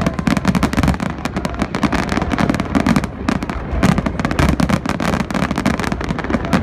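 Fireworks display: a dense, continuous barrage of overlapping bangs and crackles, many per second, with no let-up.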